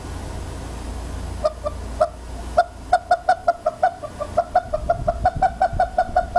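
Yellow rubber chicken toy squeezed over and over, giving short squeaky honks: a few spaced ones from about a second and a half in, then a quick run of about five a second.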